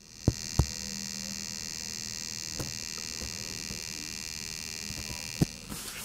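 IKEA Sjöss 30W USB-C charger buzzing while plugged in with no device connected, picked up close against its case. It makes a steady high-pitched whine with a faint low hum beneath it and a few light clicks, and it stops near the end. The owner suspects coil whine or a capacitor issue.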